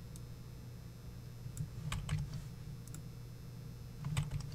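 Computer keyboard being typed on in two short bursts of key clicks, about a second and a half in and again near the end, over a steady low hum.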